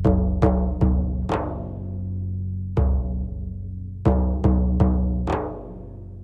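Background film music of deep drum strikes, each ringing on in low tones. Four come in quick succession at the start, one near the middle, and four more in the second half.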